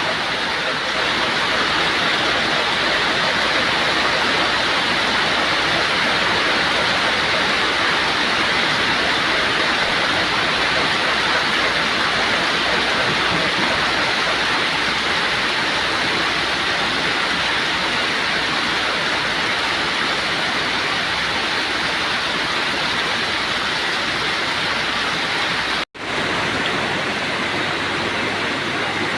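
Heavy rain falling, a steady loud hiss. About 26 seconds in it cuts out for a moment, then goes on with a faint low hum underneath.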